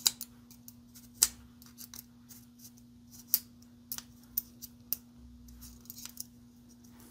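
Steel snap ring pliers clicking and tapping against the snap ring and barrel nut of an AR-15 delta ring assembly as the parts are worked into alignment: about a dozen irregular sharp clicks, the loudest at the start and about a second in.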